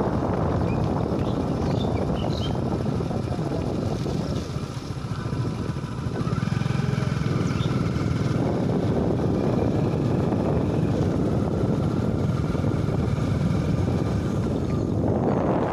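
Wind buffeting the phone's microphone: a loud, uneven rumble that eases for a moment about five seconds in and then returns. A few faint high chirps sound above it.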